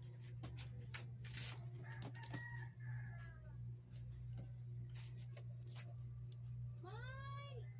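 A chicken calling twice, a drawn-out falling call about two seconds in and a louder, shorter arched call near the end, over a steady low hum and scattered faint clicks.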